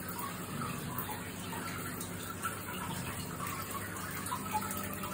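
Aquarium filter water trickling and splashing steadily into a goldfish tank, over a faint steady low hum.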